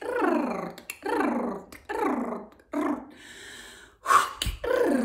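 A woman's voice toning wordless light-language sounds: a run of short swooping calls, each sliding down in pitch, about one a second. A long breathy exhale comes about three seconds in, then one more falling call.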